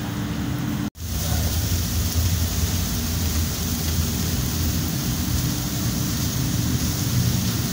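Chicken sizzling over a hot charcoal grill, an even hiss over the steady low drone of a kitchen extractor fan. The sound drops out for an instant about a second in.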